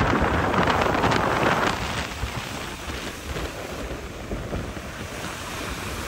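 Rough sea waves breaking and foaming over a rocky shore. The rush of surf is loudest for about the first second and a half, then eases to a steadier, lower wash.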